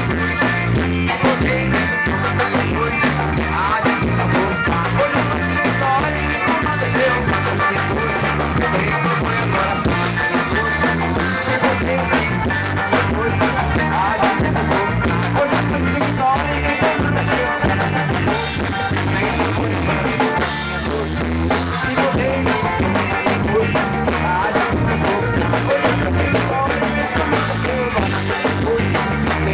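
Live forró gospel band playing an instrumental passage between verses: a steady drum-kit beat under sustained melody lines.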